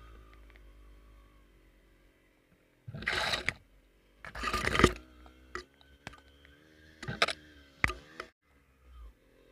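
Motorcycle engine running with a low, steady hum. Several loud rushing bursts break in: two longer ones about three and four and a half seconds in, and shorter, sharper ones later on.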